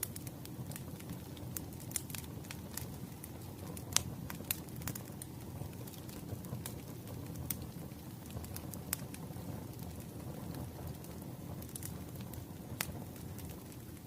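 Wood fire burning: a steady low rumble of flames with irregular sharp crackles and pops from the burning firewood, the loudest pop about four seconds in.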